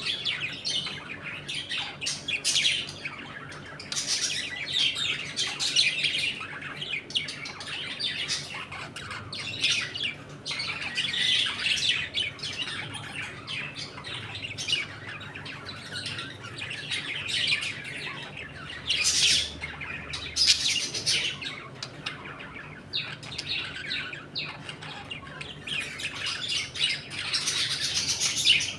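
A flock of budgerigars chattering, with many overlapping chirps, warbles and squawks going on without a break.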